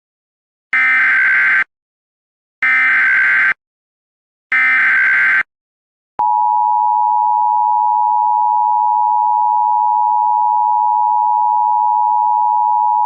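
Emergency Alert System tones: three bursts of warbling digital data tones, about a second each, then the steady two-tone attention signal from about six seconds in. This header-and-attention-tone sequence marks the start of a new alert message.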